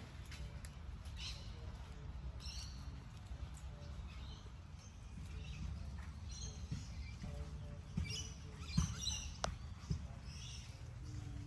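Birds chirping in short, high calls repeated every second or so over a low, steady background rumble, with a few sharp clicks near the end.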